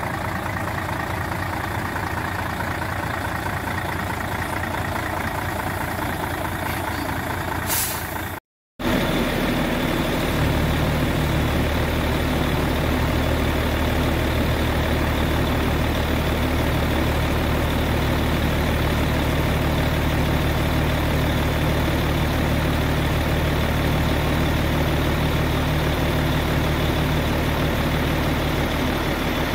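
The diesel engine of a 2002 Mercedes-Benz Actros 3340 truck tractor idling steadily, with a short hiss a little before eight seconds in. After a moment's dropout the idle comes through louder and deeper.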